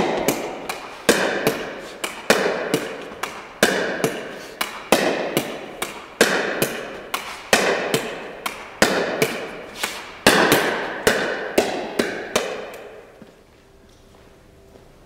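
A Six Zero pickleball paddle hitting a plastic pickleball against a wall in a steady rally, a sharp pock about every 1.3 s with the ball's smaller knocks off the wall and floor between, echoing in a gym hall. The rally stops near the end.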